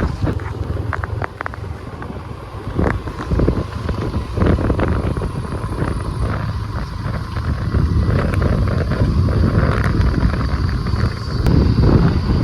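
A vehicle travelling on a rough off-road track, with wind buffeting the microphone and scattered knocks and rattles.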